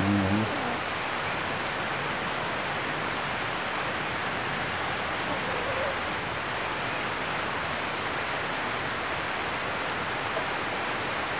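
Steady, even rushing hiss of outdoor background noise. A few faint bird chirps sound near the start, and one short high chirp comes about six seconds in.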